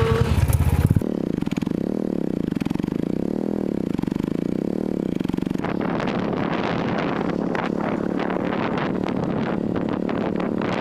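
A vehicle's engine running on the move, steady at first. From about halfway through, rattling and clatter are added as it goes over a rough road.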